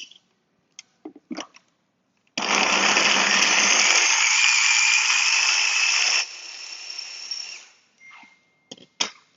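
Electric food chopper running loud and steady for about four seconds, with a slowly rising whine as its blades chop carrots. It then drops to a quieter whir that dies away. There are a few plastic clicks before it starts and a couple more near the end.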